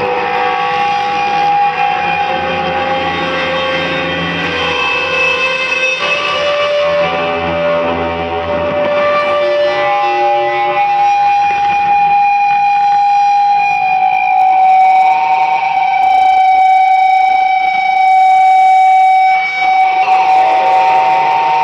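Live drone music: electric guitar run through effects pedals with distortion, together with a keyboard, holding long sustained tones that step slowly from one pitch to another. Late on, a fast fluttering buzz joins high up and then drops out.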